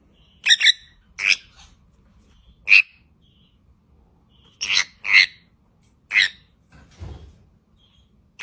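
A parrot giving a series of short, loud calls, about seven of them at irregular intervals.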